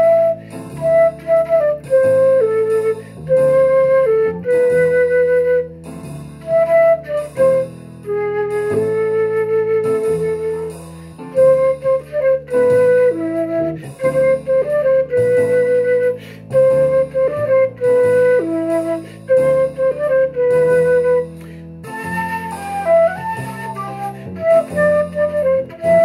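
Silver concert flute playing a melody of mostly held notes in phrases, with brief breaks between phrases.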